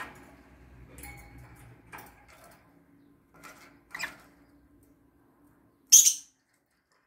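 Peach-faced lovebird moving about its wire cage: scattered light clicks and rustles, then one short, sharp, high-pitched burst about six seconds in, the loudest sound.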